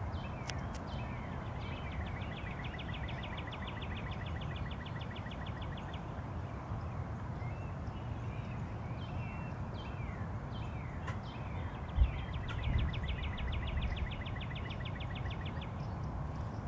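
A small songbird trilling: two long runs of fast, evenly repeated high notes, about nine a second, with scattered single chirps between them, over a steady low rumble. A single thump about two-thirds of the way through is the loudest sound.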